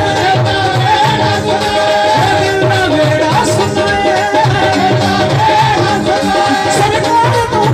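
Live Indian folk-style music played loud through a stage PA: singing over a hand-played barrel drum (dhol) keeping a steady rhythm, with sustained melody lines.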